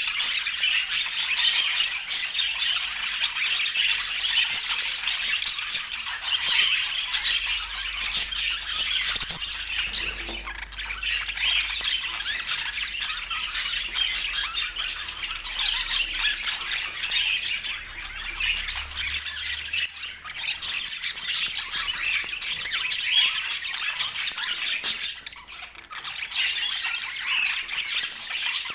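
Budgerigars chattering: a dense, continuous stream of rapid, overlapping squawks and chirps.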